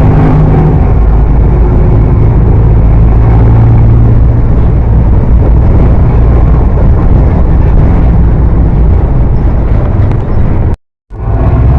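Mercedes-Benz OF 1418 bus's diesel engine and exhaust running steadily and loudly, its note rising and falling slightly. The sound drops out completely for a moment near the end.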